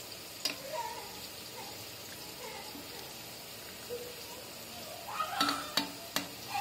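Prawns frying in a wet masala gravy in a steel kadai while a metal spatula stirs them. A quick run of sharp clinks and scrapes of the spatula against the pan comes near the end.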